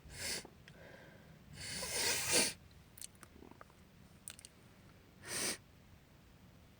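A woman sneezes once, about two seconds in, the sneeze building up and ending in a sharp burst. A short sniff comes just before it and another near the end.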